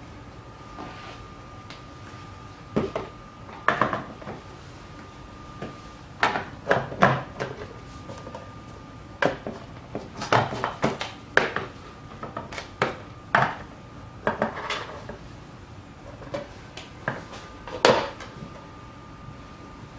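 A plastic mandoline slicer and vegetables being handled on a wooden table: irregular clicks and knocks, some in quick clusters, over a faint steady high tone.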